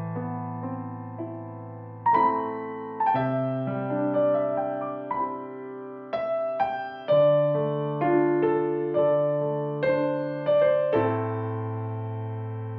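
Background music: a slow piano piece, with chords and single notes struck and left to ring out.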